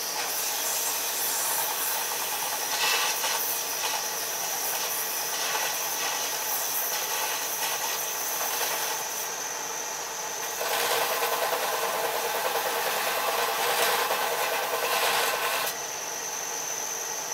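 Belt grinder grinding steel: a steady scraping hiss over the machine's high whine, growing louder for about five seconds in the second half, when the whine drops out under the heavier grind.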